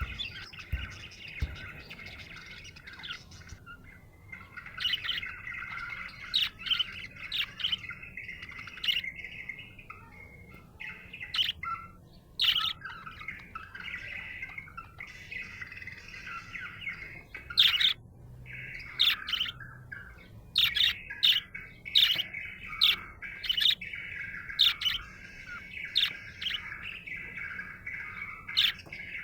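Budgerigar chirping and warbling in a happy, contented chatter. A continuous warble runs under many short, sharp chirps, which come faster and louder in the second half.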